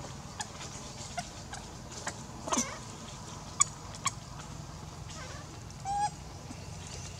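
Scattered short animal calls and sharp clicks: a brief squeal about two and a half seconds in, a loud click at about three and a half seconds, and a short pitched call near six seconds, over a steady low hum.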